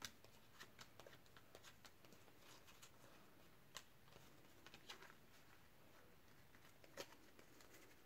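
Faint, scattered clicks and rustles of trading cards being sorted by hand and laid down in piles, the most distinct near four seconds in and near seven seconds in.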